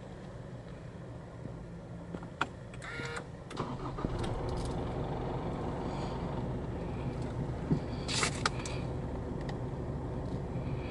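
Mazda BT-50's 3.0-litre Isuzu 4JJ3-TCX four-cylinder turbodiesel starting, heard from inside the closed cab: a few clicks and a brief crank, then it catches about four seconds in and settles into a steady idle. A few more clicks come near the end.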